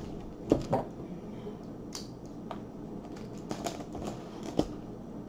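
A long cardboard box being set down on a wooden table and handled: a knock about half a second in, then scattered light taps and clicks as fingers work at one end of the box.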